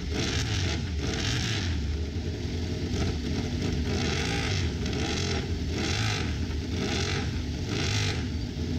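Racing motorcycle engines turning over from cold on paddock stands, blipped in short revs about once a second over a steady idle.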